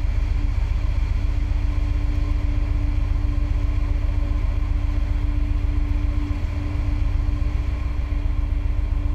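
Steady aircraft engine drone heard from aboard the aircraft: a constant low rumble with one steady hum above it, unchanging throughout and with no blast audible.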